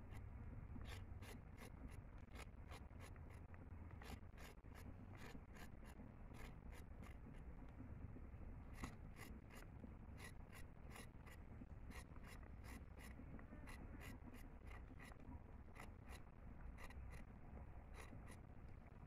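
Large machete-style knife slicing a carrot held in the hand: a faint, irregular series of crisp cuts, about two or three a second.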